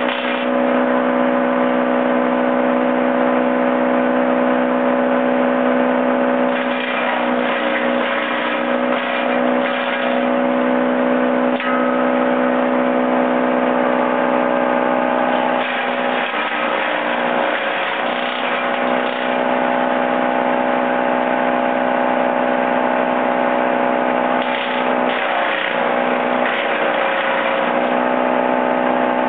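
Wallenstein BXM32 PTO-driven chipper shredder running steadily off a Kubota L3200 tractor. Cedar branches are fed in and chipped in three bouts, each adding a rough crunching noise while the machine's hum drops and wavers under the load.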